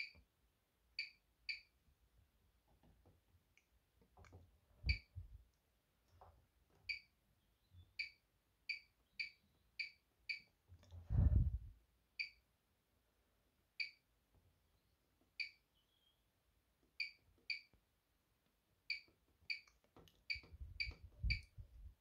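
Bosch Serie 6 washing machine's control panel beeping: about twenty short, identical high beeps at irregular spacing, one for each button press or setting step. A few dull low thumps come between them, the loudest about halfway through.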